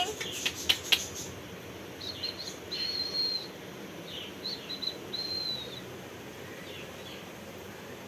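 Indian ringneck parakeet giving high, thin whistled calls in two groups, a few short notes then a longer held note each time. A few sharp clicks come before the calls, about a second in.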